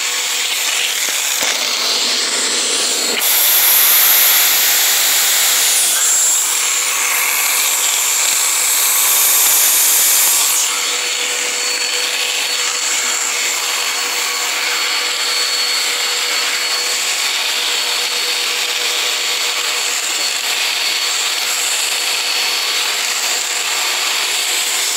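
Black and Decker upright vacuum cleaner running steadily, a constant whine over a hiss. It gets louder and hissier for several seconds a few seconds in, then settles back.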